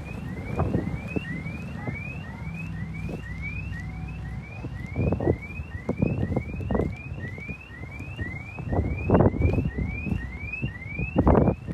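An electronic warning alarm sounding a short rising chirp over and over, about two a second, with wind buffeting the microphone in gusts.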